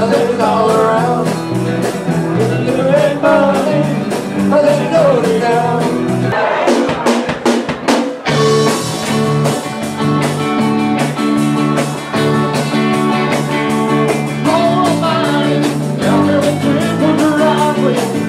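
Live bar band playing blues-rock, with a male voice singing over electric guitar and a drum kit.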